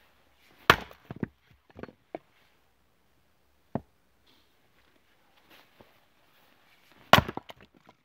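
Two sharp strikes of a splitting axe into a firewood round on a chopping block, about a second in and again near the end. Each strike is followed by a few lighter knocks as the wood gives way and pieces fall. A single light wooden knock comes midway, as a piece of log is set on the block.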